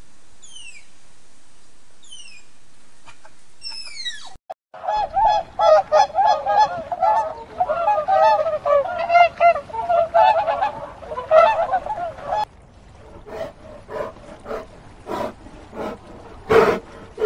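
Waterfowl honking loudly, one call hard on another, for about eight seconds, after a few thin falling bird chirps over a steady hiss. About twelve seconds in the honking stops abruptly and gives way to a string of short, separate lower sounds.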